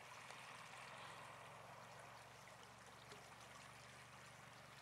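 Near silence: a faint steady hiss of outdoor background noise over a low steady hum.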